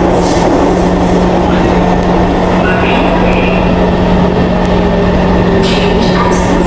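Kawasaki Heavy Industries C151 metro train running through a tunnel and drawing into a station, heard from inside the car by the doors: a loud, steady rumble with a steady hum under it, and a few sharp clicks near the end.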